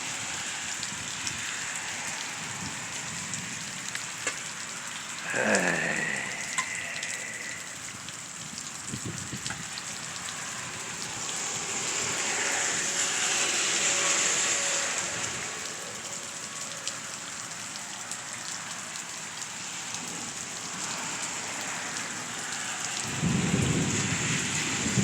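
Steady rain falling, with a brief loud sweeping sound about five seconds in. A low rumble of thunder starts near the end.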